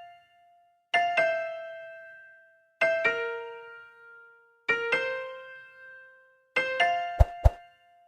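Slow keyboard music, with bell-like electric piano notes struck in pairs about every two seconds, each ringing out and fading. Two sharp clicks come near the end.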